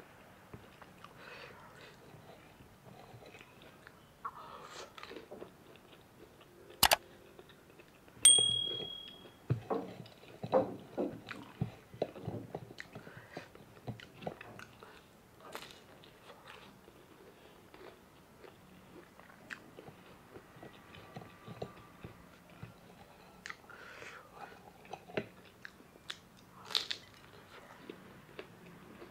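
Close-miked biting and chewing of a chicken spring roll dipped in sauce, with crunches densest about a third of the way in. A sharp click and a brief high ring come just before the loudest crunch.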